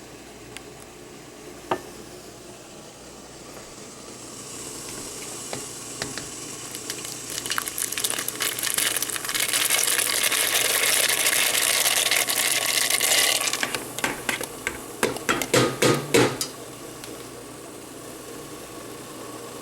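Pumpkin seeds going into a pot of salted water at a rolling boil: a low bubbling hiss swells over several seconds into a loud rushing hiss, then dies back. Near the end comes a quick run of knocks as the pot is stirred, and it settles to a quieter bubbling.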